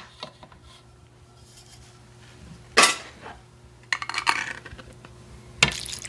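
Metal food can knocking and clinking against a stainless-steel mesh strainer as canned clams are tipped and shaken out, with two sharp knocks about three seconds apart. In between, clam juice trickles through the strainer into a plastic bowl.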